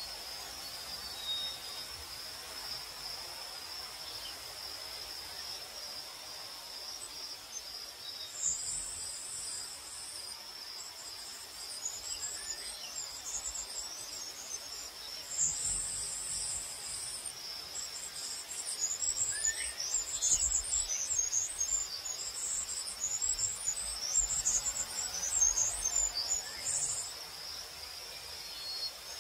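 Crickets trilling steadily at one high pitch, with a second, higher and choppier chirring coming and going in bursts from about eight seconds in until near the end.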